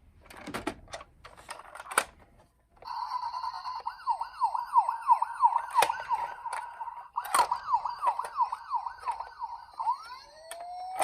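Clicks and knocks of a toy car being handled, then about three seconds in a small electronic toy siren starts: a held tone that breaks into a fast warble of about three sweeps a second, cuts out briefly and resumes, with a few sharp knocks over it. Near the end a second siren tone glides upward.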